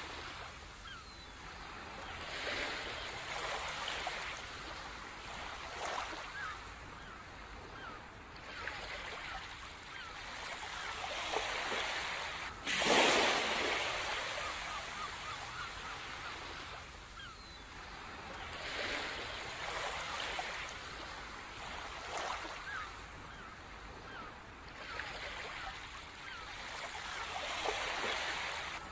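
Ocean surf washing onto a beach, the hiss of the water swelling and fading every few seconds, with one wave breaking sharply and loudly about halfway through.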